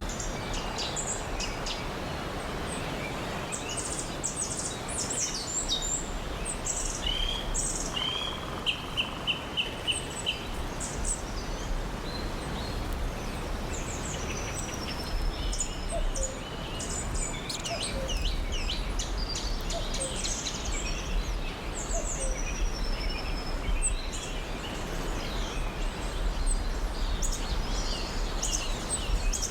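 Songbirds chirping and singing over a steady background hiss, with many short high calls, whistled notes and a few quick runs of repeated notes.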